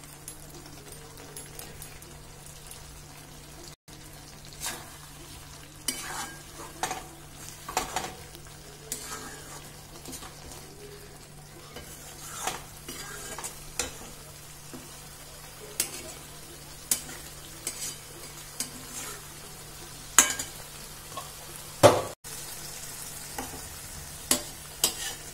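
Flat metal spatula stirring and scraping small potatoes in thick masala gravy in a metal kadai, with irregular clicks and scrapes against the pan over a faint steady sizzle. The masala is frying down until the oil separates.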